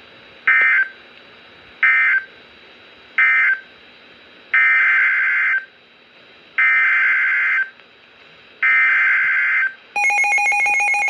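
NOAA Weather Radio SAME digital data bursts over a Midland WR400 weather radio's speaker, a harsh buzzing chirp each time. First come three short end-of-message bursts closing the first warning, then three longer header bursts of about a second each that encode the next warning. Near the end, a loud, rapidly pulsing alert tone starts.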